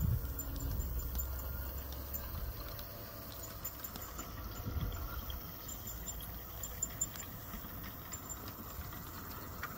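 A 1:24-scale garden-railway model train running past: low rumble of the wheels on the track and wooden trestle, fading after two or three seconds as it moves away. Then quieter running with scattered light clicks of the wheels over the track.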